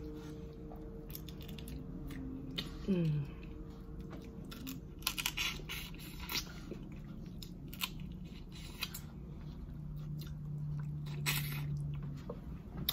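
A person eating Dungeness crab and shrimp: scattered crunches and chewing sounds, a sharp crack every second or two.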